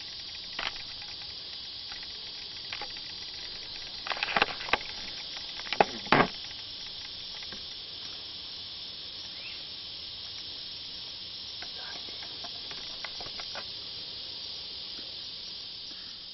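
Steady high-pitched chorus of evening insects. A few sharp knocks and clicks cut through it about four and six seconds in.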